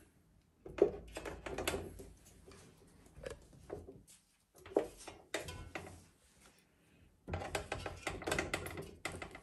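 Raw chicken drumsticks being set one at a time into a large metal cooking pot: soft knocks and dull clunks against the pot's bottom and side, coming in four short bunches with pauses between.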